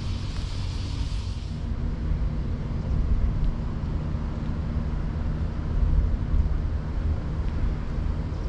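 Wind rumbling on the microphone outdoors. A higher hiss over it stops abruptly after about a second and a half.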